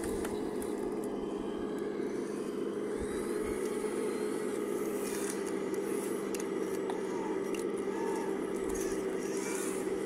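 Radio-controlled hydraulic excavator running with a steady electric hum from its hydraulic pump as it swings and digs, with scattered light scrapes and clicks of gravel and stones.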